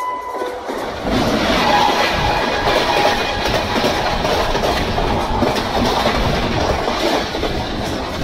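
A passenger train hauled by an electric locomotive passing close on the adjacent track: a steady tone ends about half a second in, then from about a second in the coaches rush past with a loud rattling and clickety-clack of wheels over the rail joints.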